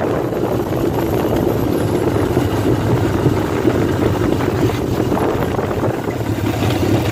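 Honda CB750 Four chopper's air-cooled inline-four engine running steadily as the bike is ridden along the road.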